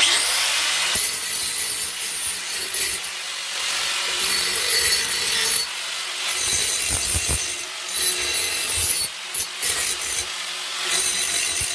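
Power grinder grinding the freshly cut end of a steel exhaust pipe to dress off a leftover burr, a harsh rasping grind that starts abruptly and rises and falls as it bites.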